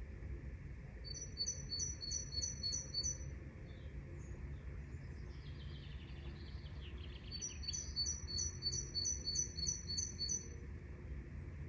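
Forest birdsong: a songbird repeats a high two-note phrase about three to four times a second in two runs, with softer chirps between them. A low steady rumble runs underneath.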